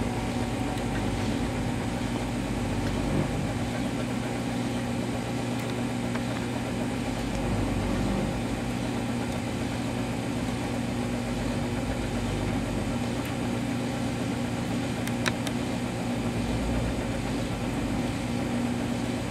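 Gorman HDH CNC coil winder running steadily, its 1-horsepower permanent-magnet DC motor turning the spindle as it winds two strands of 11-gauge copper wire onto coil forms: an even machine hum with a steady low tone.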